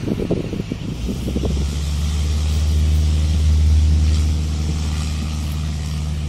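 Single-engine Cessna trainer taxiing past, its piston engine and propeller running with a steady low drone. The drone swells about a second in, is loudest midway and eases slightly toward the end.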